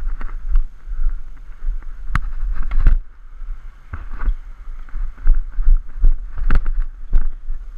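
Tennis racket striking the ball on a serve with a sharp crack about two seconds in, followed by a few more hits and knocks as the point is played, all over a steady low rumble on the camera microphone.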